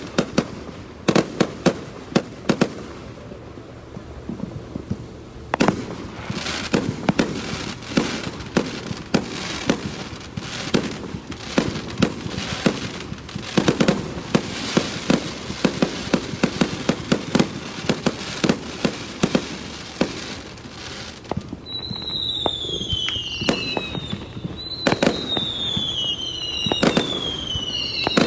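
Fireworks going off close by: a rapid, irregular string of sharp bangs and crackles. In the last several seconds, a run of whistles sounds, each falling in pitch, about one a second.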